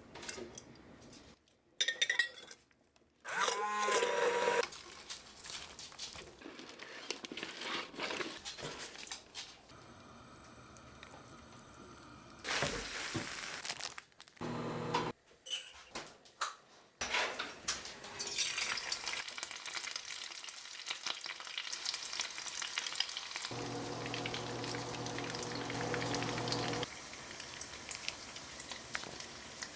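Hot oil sizzling as food fries, heard in several short edited segments with brief kitchen clatter. A steady hum comes in for a few seconds near the end.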